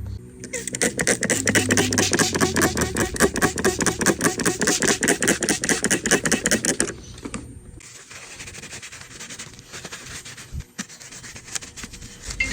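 Fast, rhythmic back-and-forth scrubbing on a grimy iPad, about ten strokes a second, stopping after about six seconds; fainter scraping and a few light clicks follow.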